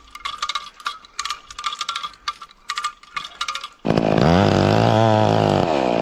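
A quick, irregular run of metallic clicks with a ringing note, then, a little under four seconds in, a chainsaw abruptly starts running loud, its pitch swinging up and down as it revs.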